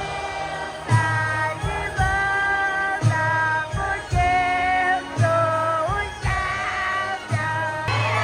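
Music with singing: held vocal notes over a steady bass beat.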